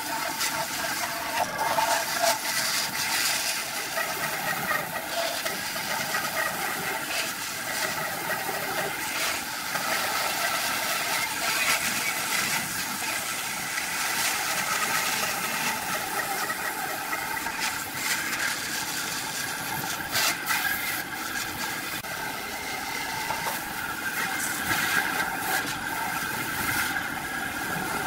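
Bandsaw running and cutting through a thick block of wood: a steady machine whir with hiss and scattered ticks.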